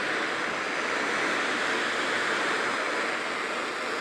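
Steady radio static hiss with no voice on the channel, the dead air of a weather-alert broadcast between messages.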